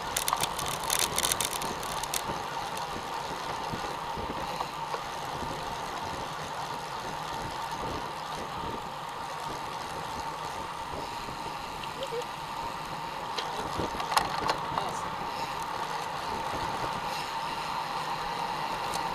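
Road bicycles rolling on asphalt in a group, heard from a camera mounted on one of the bikes: steady tyre and wind noise, with bursts of clicks and rattles near the start and again about two-thirds of the way through.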